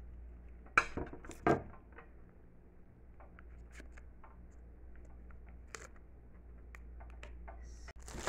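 Handling noise of a phone charging cable and charger being plugged in: two sharp knocks about a second in, then scattered light clicks and taps over a faint low hum.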